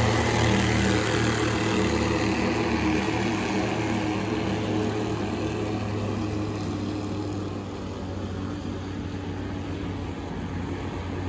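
Several Bandolero race cars running at speed around the oval. Their engines make a steady, layered drone that slowly grows fainter.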